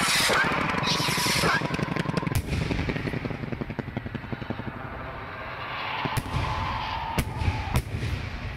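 Several strobe rockets burning in flight with a fast, stuttering chop that sounds like helicopters, with sharp bangs breaking through, four of them standing out from about two and a half seconds in.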